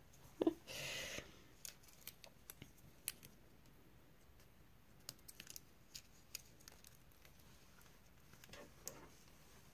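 Faint, scattered small clicks of handheld thread snips being worked, with a short rustle about a second in.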